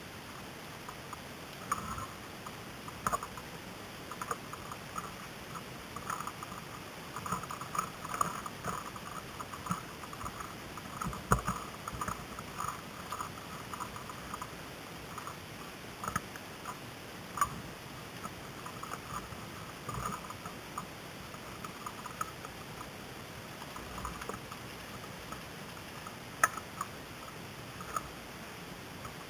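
Irregular light clicks and taps, bunched more densely in places, with a few sharper, louder knocks.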